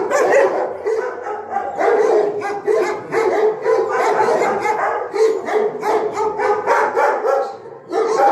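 Many dogs in shelter kennels barking at once without a break, the barks overlapping into a continuous din.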